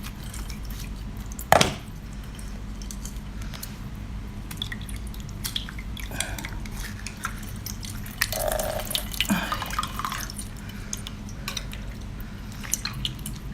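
Dripping liquid and wet handling sounds as a large piece of seafood is cut open, with scattered small clicks and one sharp knock about a second and a half in.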